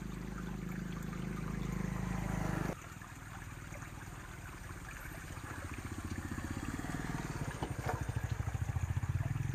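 A low motor hum builds, breaks off abruptly under three seconds in, then builds again with a fast throb. Faint trickling water runs underneath.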